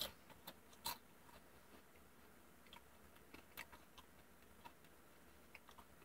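Faint crunching of a person chewing potato chips: a few louder crunches in the first second, then softer, scattered ones.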